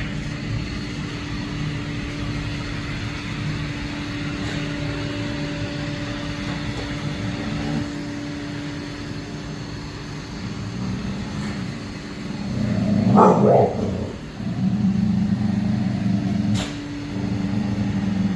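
A micro bully dog growling in low rumbles at a robot vacuum running with a steady hum. About two-thirds of the way in there is a louder outburst, and after it the growling grows stronger.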